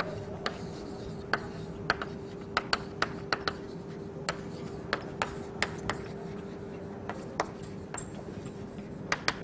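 Chalk writing on a blackboard: irregular sharp taps and clicks as the chalk strikes and lifts off the board letter by letter, over a faint steady hum.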